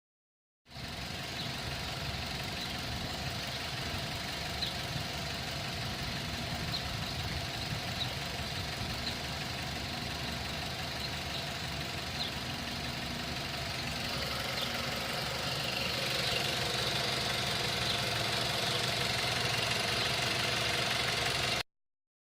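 A car engine running steadily, with a faint high steady tone and a few light, irregular ticks over it, getting a little louder in the last third.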